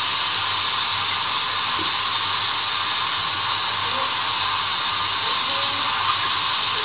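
Steady hiss with a faint low hum underneath.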